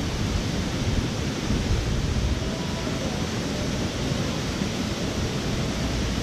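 Steady rushing roar of a tall mountain waterfall, an even noise heavy in the low end.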